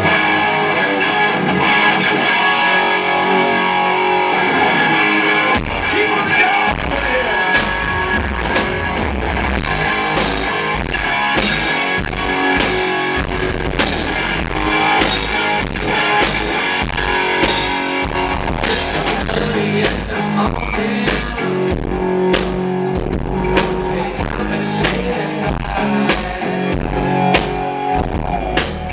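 Loud live rock band. For about the first five seconds an electric guitar plays on its own, then drums and bass come in together with a heavy kick drum that distorts the low end of the recording.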